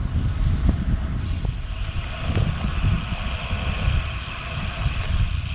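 Wind buffeting the microphone while riding a road bike. About a second in, a steady hiss joins: the bike's tyres rolling through wet pavement.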